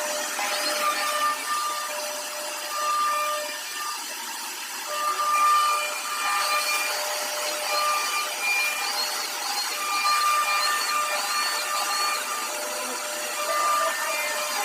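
CNC router carving a door design: the spindle and cutter run with a steady hiss, while the stepper motors' whining tones start and stop every second or so as the axes move, with short high chirps in the middle.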